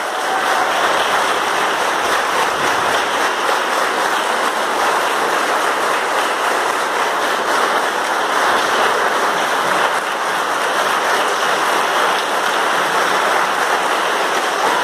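Audience and performers applauding together, a steady, dense clapping that holds for the whole stretch.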